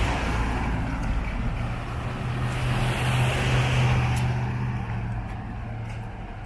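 Road vehicle engine running with road noise, swelling about three seconds in and easing off near the end.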